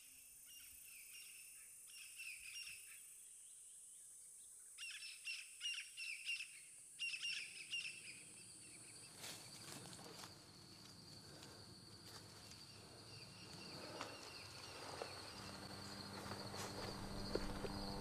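Woodland birds calling in bursts of quick, repeated chirps. Through the second half a low rumble builds steadily, and a steady low hum joins near the end.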